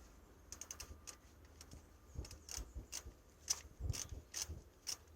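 Ratchet clicking in short, quiet runs, about two clicks a second, while the gearbox mounting bolts are worked loose.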